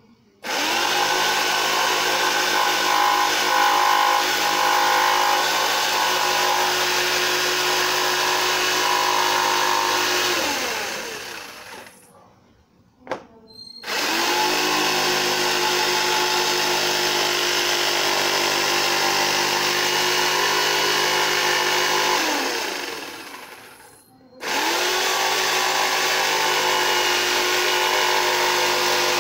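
Electric jigsaw cutting a curved semicircle into scrap plywood. It runs in three long bursts separated by short pauses, and the first two bursts drop in pitch as the motor winds down when the trigger is released.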